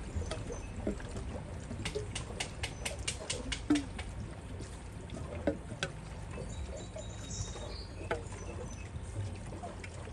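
A steady low hum, with a quick run of sharp clicks, about three a second, from about two to four seconds in, a few lone clicks later, and a few faint high chirps.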